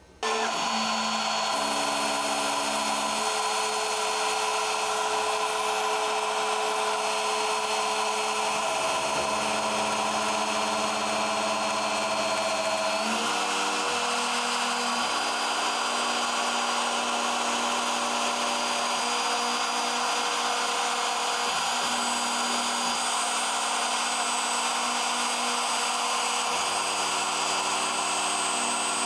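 CNC-Step portal milling machine running its program, the spindle and cutter milling through a 4 mm hard PVC sheet. A steady, loud machine noise, with humming tones underneath that jump to new pitches every few seconds.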